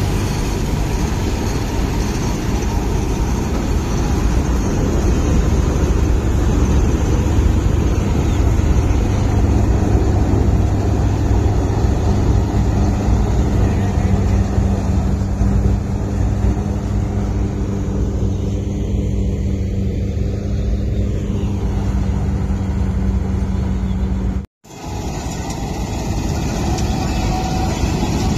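Dasmesh combine harvester running steadily under load while harvesting paddy: a loud, even engine-and-machinery hum. The sound breaks off for an instant about 24 seconds in, then carries on.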